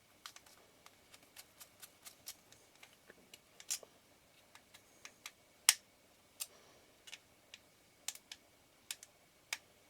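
Irregular small sharp clicks and ticks of small metal tools and tiny screws against the metal parts of a camera lens being reassembled, with one louder click about halfway through.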